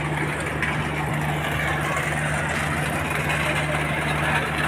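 A heavy engine idling steadily, a low hum that holds without change, under a general outdoor din.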